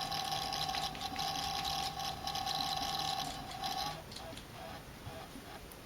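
Celestron CGX equatorial mount's motors giving a steady, high-pitched buzzing whine, the noise the mount made with old mount-controller firmware and cured by a firmware upgrade. About four seconds in it drops to a quieter pulsing tone, about three pulses a second.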